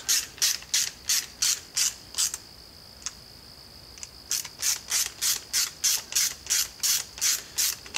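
Ratcheting screwdriver being worked back and forth by hand to drive screws into a plastic tool housing, its ratchet giving about three short scraping clicks a second. The clicking stops for about two seconds, with a lone click or two, then starts again.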